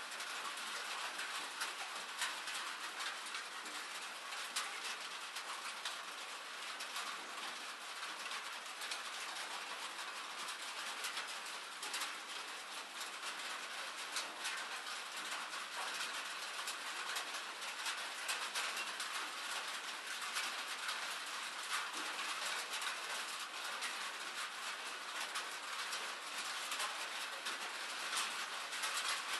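Steady rain falling: an even wash of noise with a dense patter of small, sharp drop ticks.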